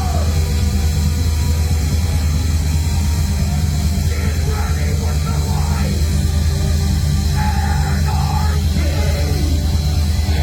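A live rock band playing loud, heavy music, with a voice yelling or singing over it now and then.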